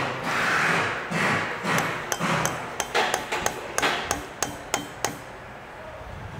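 A hammer tapping the arm of an Allen wrench to drive a clamp bolt on a pump's gear ball housing tighter than it will turn by hand. A few duller knocks come first, then a quick run of about a dozen sharp metallic taps, which stop about five seconds in.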